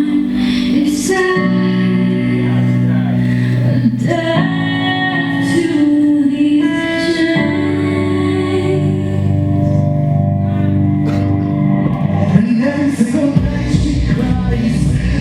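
Music with a voice singing over held chords that change every second or two; a heavy bass comes in near the end.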